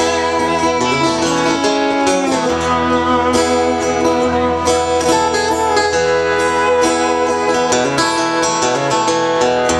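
Acoustic guitar and lap steel guitar playing an instrumental passage without vocals, the lap steel sliding between held notes.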